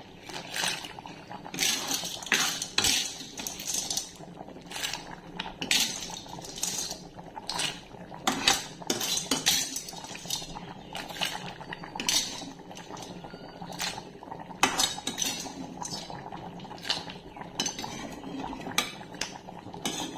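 Snail curry boiling in a metal pan, with frequent sharp clinks and knocks against the metal, a few a second, over the bubbling.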